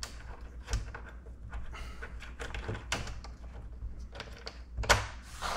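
Light clicks and taps of a hand precision driver with a socket bit turning small bolts out of a plastic instrument cluster housing. A sharper knock comes about three-quarters of a second in, and another near the end.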